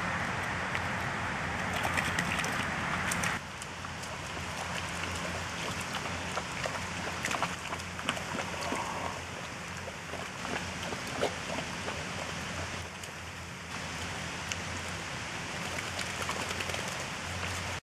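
A black Labrador and a boxer wading and splashing in a muddy puddle: scattered small splashes and squelches over a steady outdoor hiss, which drops in level about three seconds in.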